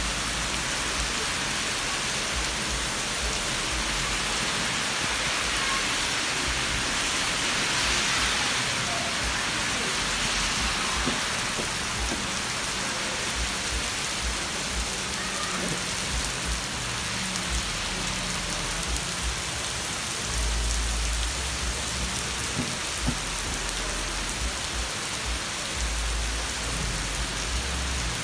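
Heavy rain pouring onto a paved pavement and a flooded road, a steady dense hiss of drops hitting the wet surfaces, briefly heavier about eight seconds in. A couple of low rumbles come in the second half.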